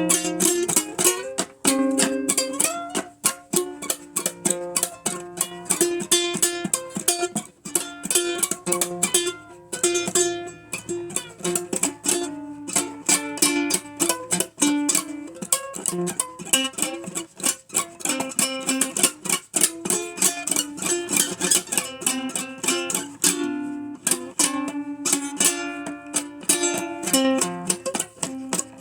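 Ukulele played solo, picking an old-time blues tune in quick runs of plucked notes, with no singing.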